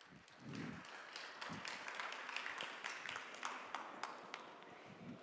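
Faint audience applause, many scattered hand claps, rising about half a second in and tailing off near the end.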